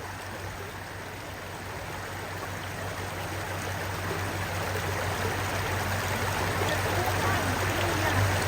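Rushing stream water, an even noise that grows gradually louder, with a steady low hum beneath it.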